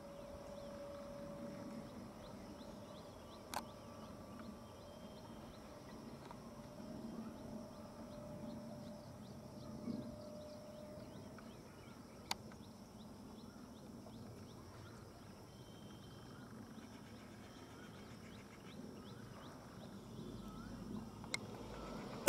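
Faint outdoor ambience: distant bird calls and chirps over a low background hiss, broken by a few short sharp clicks. No loud train noise is heard.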